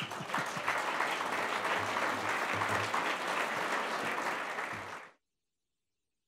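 Audience applauding, a steady spread of clapping that cuts off abruptly about five seconds in.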